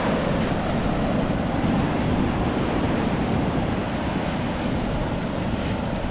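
Ocean surf breaking and washing on the shore, a steady loud rush, with wind on the microphone.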